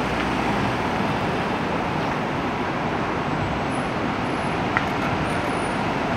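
Steady city street traffic noise, with one short click about five seconds in.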